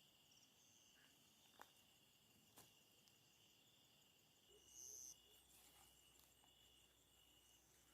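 Near silence, with night insects such as crickets calling faintly in steady high tones. A louder, high buzzing call rises briefly about five seconds in, and there are a couple of faint clicks.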